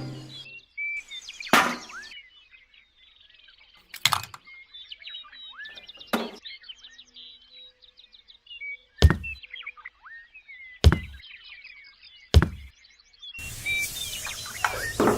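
Six sharp knocks or thuds a couple of seconds apart over steady bird chirping, with a broad rushing noise setting in near the end.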